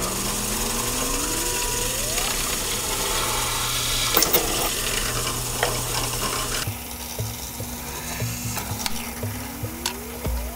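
Benchtop drill press running, its whine rising in pitch at the start and again near the end, with scraping and light knocks as a flat metal strip is slid into place on the plywood table under the bit.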